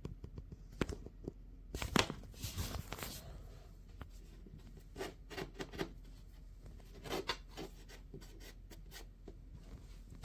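Handling noise: light rubbing and scraping with scattered small clicks and knocks, busiest about two seconds in, and a louder knock at the very end.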